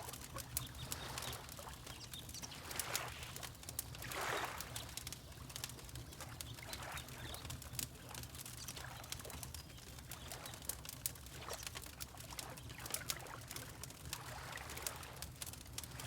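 Wood fire crackling with frequent sharp pops, over water lapping in slow swells, the largest about four seconds in, and a steady low rumble underneath.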